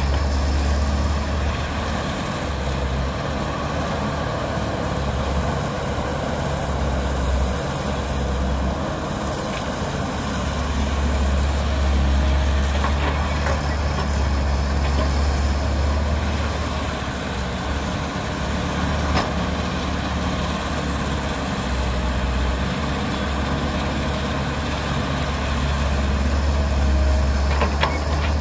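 Diesel engine of a tracked excavator running steadily with a low rumble while it loads a dump truck with soil. Its loudness swells and eases a little over the dig-and-dump cycle.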